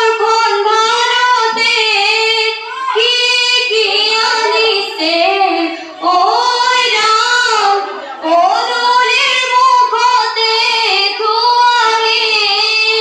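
A group of teenage girls singing an Assamese biya naam (traditional wedding song) together in one melodic line, with short breaks between phrases about two and a half, six and eight seconds in.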